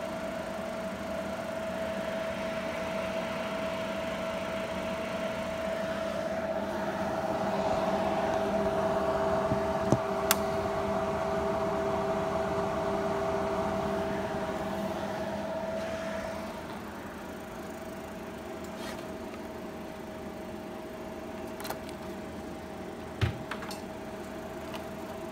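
Cooling fans of powered-on Olympus endoscopy video equipment running with a steady hum and several steady tones, louder for several seconds in the middle. There are a few sharp clicks, about ten seconds in and again near the end.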